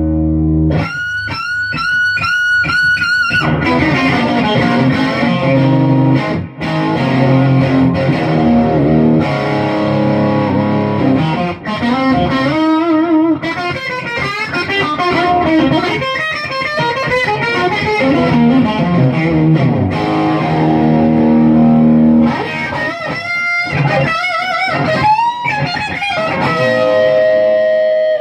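Firebird-style electric guitar played through an amplifier with effects: a run of melodic lead lines with bent notes and wavering vibrato.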